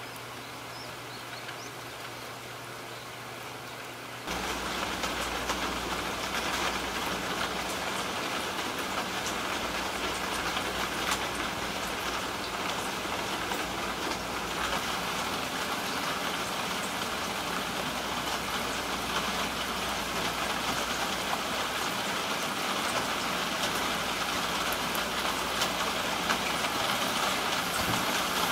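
Steady rain falling on wet pavement, with scattered drops ticking; it turns louder about four seconds in.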